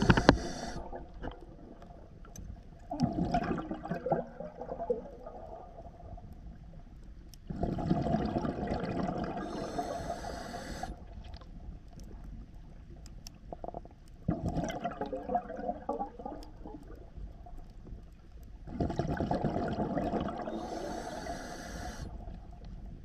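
Scuba diver breathing through a regulator underwater: bursts of breathing about every four to five seconds, the longest ones a rush of exhaled bubbles.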